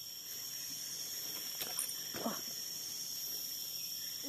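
Tropical forest ambience: a steady high-pitched insect drone, with a faint brief falling call about two seconds in.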